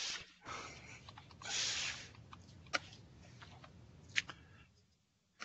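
Breathy puffs picked up close on a web-conference microphone, the loudest about one and a half seconds in, then three sharp clicks spread over the rest.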